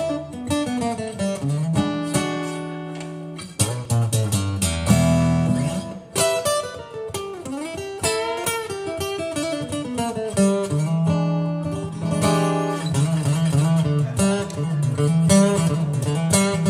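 Acoustic guitar playing a blues introduction, mixing held bass notes and strummed chords, with a few bent notes around the middle.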